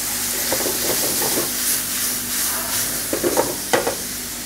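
Chicken, capsicum and onion sizzling in a hot frying pan in a soy-based sauce, with chicken stock just added, giving a steady frying hiss. A few short knocks sound over it about a second in and again near the end.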